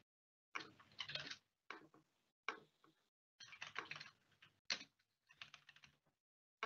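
Faint typing on a computer keyboard: keystrokes come in short bursts with brief pauses between them.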